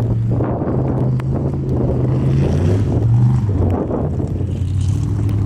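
Formula Offroad race truck's engine running at low revs, its pitch shifting with several short surges, with wind noise on the microphone.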